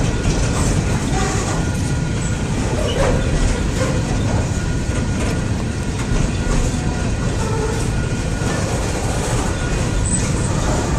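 Freight train of coal gondola cars rolling past on steel rails: a steady loud rumble of wheels on track with clickety-clack and a few brief wheel squeals.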